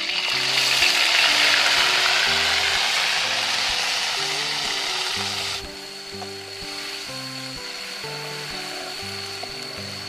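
Wet spice paste poured into hot oil in a wok, sizzling loudly at once, with a spatula stirring it; about five and a half seconds in the sizzle drops to a quieter, steady frying. Background music plays underneath.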